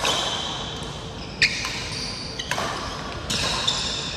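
Badminton rally: a racket strikes the shuttlecock with sharp cracks about a second apart, the loudest about a second and a half in, with squeaks in between.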